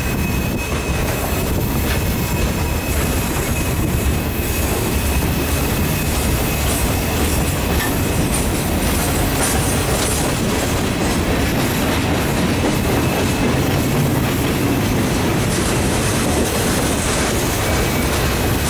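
Freight cars of a mixed freight train rolling past: a steady rumble and clatter of steel wheels on the rails, with a faint high wheel squeal during the first few seconds.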